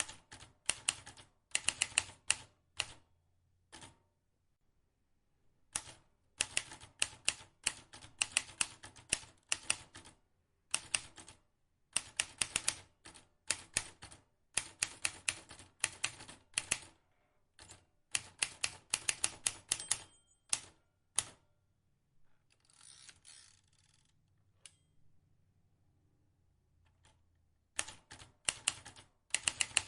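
Vintage manual typewriter being typed on: runs of sharp, uneven key strikes in bursts with short pauses between them. About two-thirds of the way through, the typing stops for a longer scraping sweep.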